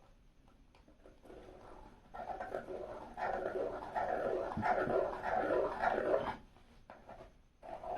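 A dog vocalising in a dense, continuous run that starts about two seconds in, cuts off suddenly a little after six seconds, and starts again near the end.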